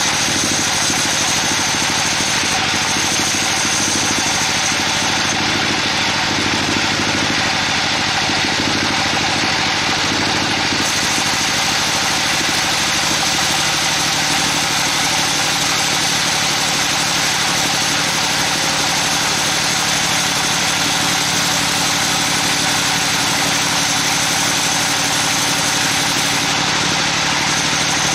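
Sawmill bandsaw running steadily, its blade cutting lengthwise through a trembesi (rain tree) log.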